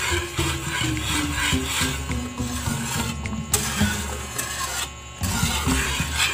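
A utensil scraping around the bottom of a pot, steadily stirring a cornstarch-thickened milk mixture on the stove. The stirring pauses briefly about three and five seconds in.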